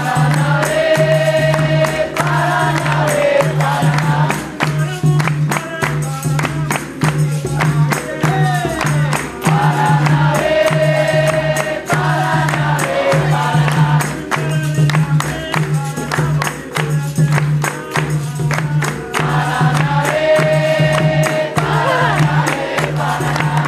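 Capoeira roda music: berimbaus and pandeiros keep a steady driving rhythm while a group sings a call-and-response chorus. The sung chorus swells in three times, about every nine or ten seconds.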